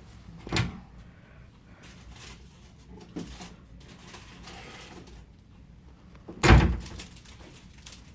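Handling noises: a short thump about half a second in, a small knock around three seconds, and a heavier, louder thump at about six and a half seconds.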